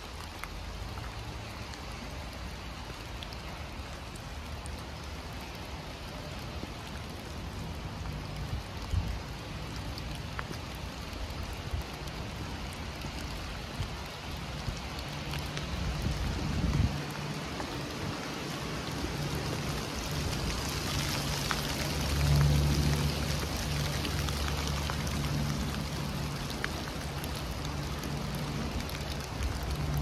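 Heavy rain falling in a forest, a steady hiss of drops with scattered individual drop hits, growing louder for a few seconds past the middle. A low rumble runs underneath through the second half.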